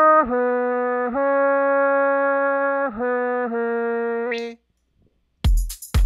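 Sawtooth-wave synth playing a few held, brassy notes that step down in pitch, run through the Arturia ARP 2600 plug-in. The notes stop about four and a half seconds in, and an electronic drum beat starts near the end.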